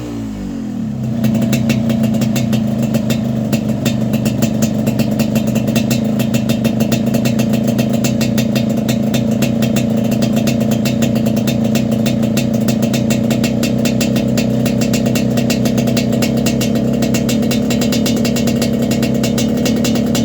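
Yamaha RX-King's two-stroke single-cylinder engine running through a Medan-style 'kolong' aftermarket exhaust. Its revs drop in the first second, then it settles into a steady idle with a fast, even exhaust beat, and the revs rise slightly near the end.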